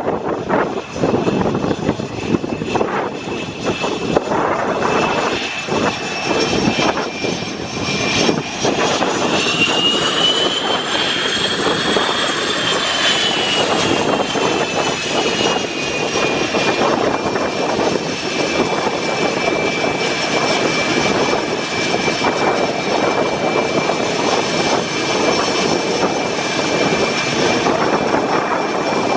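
Blue Angels F/A-18 Hornet jet engines running with a steady roar and a high whine. The whine rises in pitch about ten seconds in, then falls back and holds steady.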